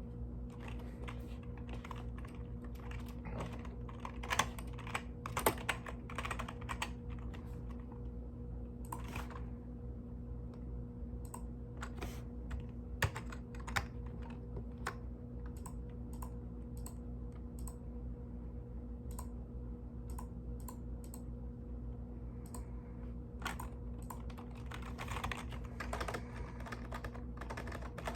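Typing on a mechanical keyboard: irregular key clacks, in quick runs near the start and again near the end, with slower, scattered keystrokes in between.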